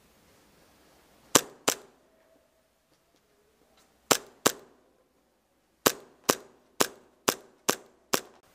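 Airsoft gun firing single shots: two quick shots, another pair a few seconds later, then a run of six at about two shots a second, each crack with a short echo.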